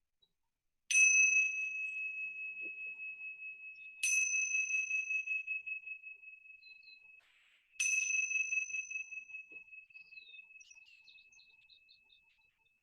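A meditation bell struck three times, about three seconds apart. Each strike rings out as one steady high tone with a wavering shimmer that slowly fades, marking the end of a guided meditation.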